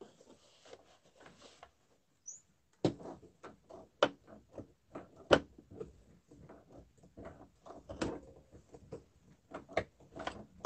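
Irregular clicks, taps and knocks from work at a sewing machine as a fabric bowl cover is handled under the needle, with the sharpest click about five seconds in.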